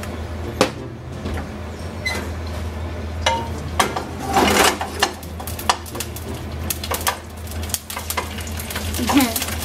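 Sliced ginger frying and spattering in hot oil in a nonstick frying pan, with irregular pops and crackles, densest about halfway, and a wooden spatula scraping and tapping the pan. Near the end, cubes of pork go into the pan.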